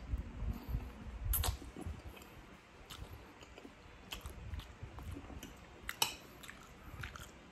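Close-miked mouth sounds of a person eating spaghetti: slurping a strand of noodles near the start, then chewing, with a few short sharp clicks scattered through.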